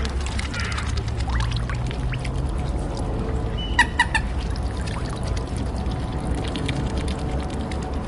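Water pouring and splashing over a steady low rumble, with a duck giving a few short quacks about four seconds in.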